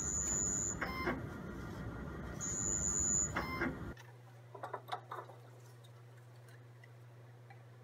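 Ultrospec 2100 pro UV/visible spectrophotometer running with a steady mechanical whirr, sounding two high electronic tones about two seconds apart. About four seconds in this stops abruptly, giving way to a low room hum and a few soft clicks of plastic culture-tube caps being unscrewed.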